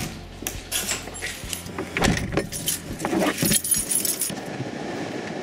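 A large bunch of keys jangling and clicking as a key is worked in a car's door lock, with a string of sharp clicks and knocks that stops about four seconds in.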